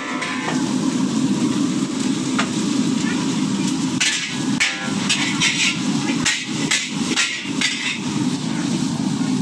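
Metal spatula and ladle clanging and scraping against a large steel wok while noodles are stir-fried, over a steady frying sizzle and burner noise. The strikes come thickest about halfway through.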